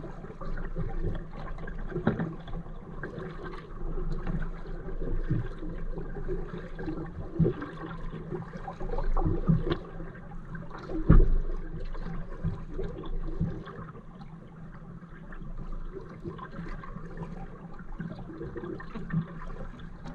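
Kayak paddle strokes splashing and dripping in calm water, with irregular knocks and thumps; the loudest comes about eleven seconds in.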